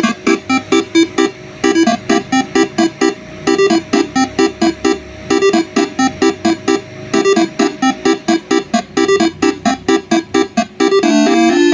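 A 12-note Basuri telolet horn set, electrically switched air trumpets, playing a melody in quick short blasts about three or four a second, then changing to held, overlapping notes about a second before the end.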